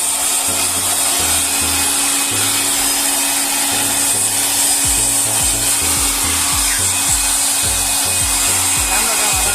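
Loud, steady rushing noise, with music underneath carrying a bass line that steps from note to note.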